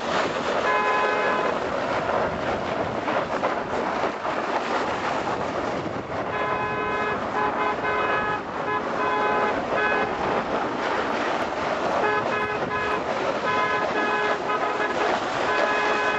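A horn sounding in repeated blasts, some short and some about a second or more long, over a steady rushing noise.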